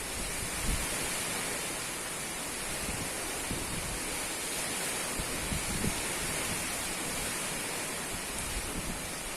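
Strong wind blowing with a steady rushing hiss, and a few brief low gusts buffeting the microphone.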